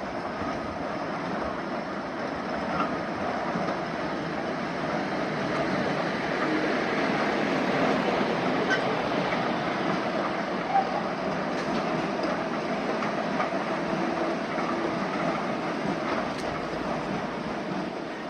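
Kurobe Gorge Railway narrow-gauge train running along the track: a steady rumble and rattle of the carriages, with occasional sharp clicks from the wheels.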